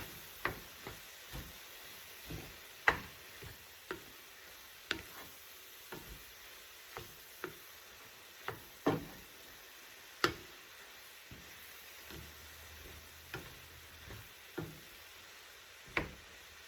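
Cauliflower fried rice sizzling in a frying pan as it is stirred, a utensil knocking against the pan in irregular sharp taps about once a second over a steady faint sizzle.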